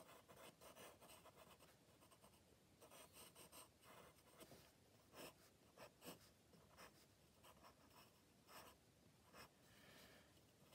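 Faint scratching of a pencil sketching on drawing paper, in many short, irregular strokes.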